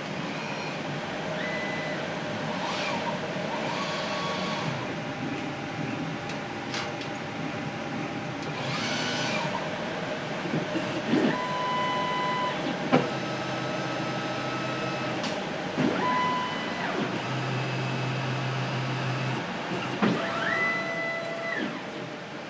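Motors of a laboratory robot system making short moves: a steady machine hum with repeated whines that rise in pitch, hold briefly and fall back, several times. A few sharp clicks come in, the loudest a little past halfway.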